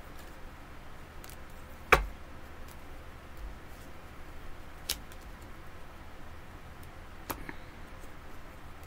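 Tarot cards being laid down on a table: three sharp snaps, about two seconds in (the loudest), near the middle, and about seven seconds in, over faint room hiss.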